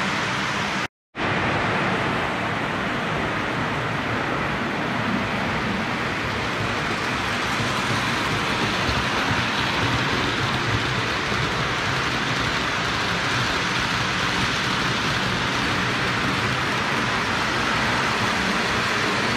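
O gauge toy trains running on three-rail tinplate track: a steady rolling hiss and rumble of wheels and motors, which cuts out briefly about a second in.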